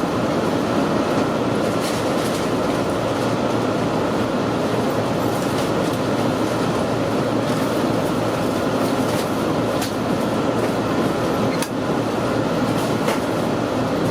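Cabin running noise of the Resort Asunaro HB-E300 series hybrid train: a steady rumble of wheels on rail, with occasional sharp clicks from the track as it nears the terminal.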